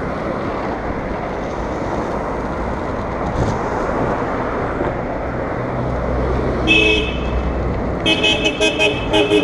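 Car horn honking: one short toot about two-thirds of the way in, then a rapid string of about seven quick toots near the end. Under it runs a steady rush of wind and road noise from skating fast through traffic.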